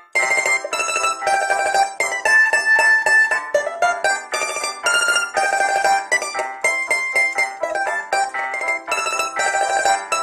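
A bisernica, the smallest Croatian tamburica, playing a melody of quick plucked notes mixed with some held notes.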